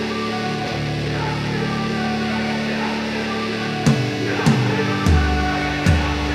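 Background rock music with guitar; a drum beat comes in about four seconds in.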